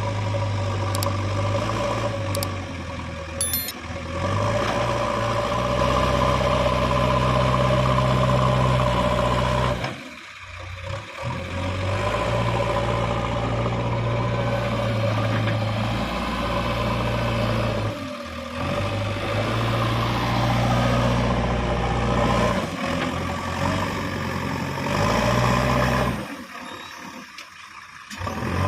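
Heavy diesel machinery running at work, its engine note rising and falling with load. The sound drops away briefly three times: about ten seconds in, again near eighteen seconds, and for a couple of seconds near the end.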